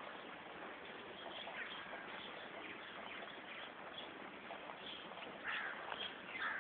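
Scattered short bird calls over a steady hiss, with two louder calls near the end.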